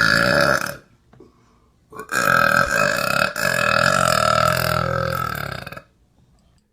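A woman's long, drawn-out burps. One ends just under a second in, and after a short pause a second burp lasts about four seconds, its pitch sinking slowly toward the end.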